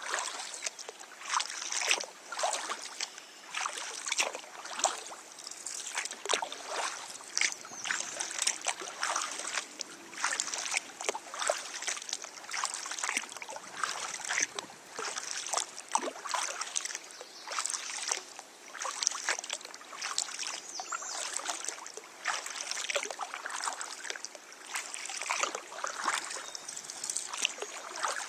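Kayak paddle dipping and splashing in the water, with water trickling and dripping in quick, irregular splashes.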